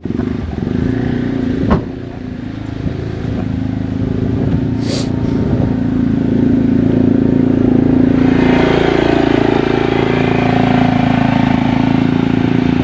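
A motor vehicle's engine running steadily and growing louder over the first several seconds, with a wider rushing noise filling in about two-thirds of the way through.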